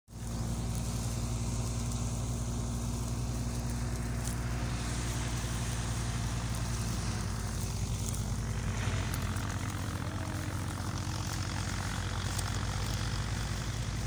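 Tractor diesel engine running at a steady speed, a low even drone. A rushing hiss grows over it from about eight seconds in.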